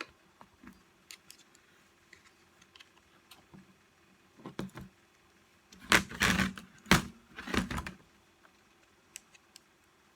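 Parts of a reciprocating saw being handled and fitted during reassembly: scattered light clicks, then a burst of louder knocks and rattles from about six to eight seconds in.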